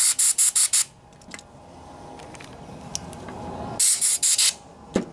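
Compressed-air blow gun firing short blasts of hissing air, blowing sanding grit out of the crankshaft oil-seal bore before a new seal goes in. There is a quick run of about five blasts in the first second, then another run of three or four about four seconds in.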